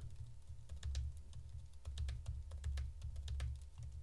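Computer keyboard keystrokes: short, irregular key clicks, a few in quick runs, over a steady low hum.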